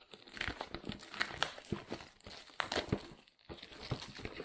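A microphone's retail box being ripped open and its packaging handled by hand: irregular crinkling, rustling and tearing with small clicks and knocks.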